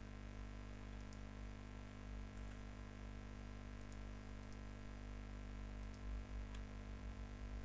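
Low, steady electrical hum of a desktop recording setup, with a few faint mouse clicks.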